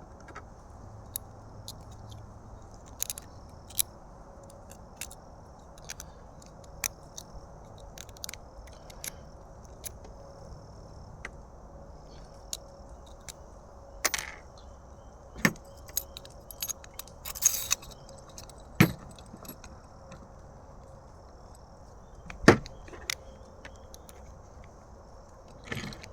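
Irregular light clicks and taps of small hard plastic parts of a 3D-printed trip alarm being handled and fitted together, a few sharper knocks in the second half, over a faint steady hiss.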